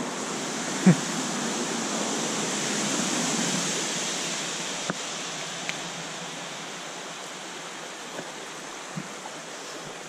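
Small creek's water running over rocks, a steady rushing that eases slightly in the second half. A sharp knock about a second in, with a few faint clicks later.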